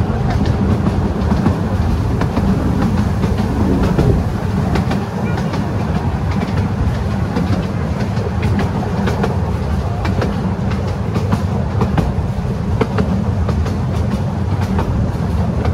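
Open carriages of a 12-inch gauge miniature railway running along the track: a steady low rumble of the wheels on the rails, with scattered clicks and knocks throughout.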